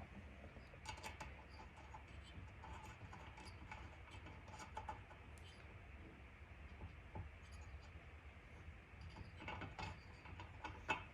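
Faint, scattered light clicks and scrapes of small metal parts being handled, a spark plug thread insert and its installing tool, over a steady low hum.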